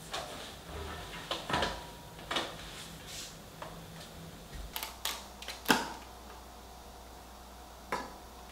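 Clicks and crinkles of a clear plastic ice-cream cone case being handled and opened, with the sharpest snap a little past halfway and one more click near the end.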